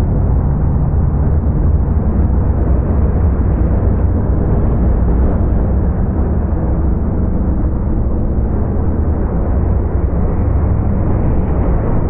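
Race car engine and track noise slowed down for a slow-motion replay, heard as a deep, steady rumble.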